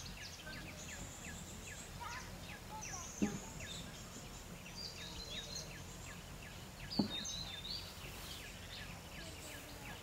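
Several small birds calling: a steady scatter of short high chips and thin whistles, with two dull thumps, about three and seven seconds in.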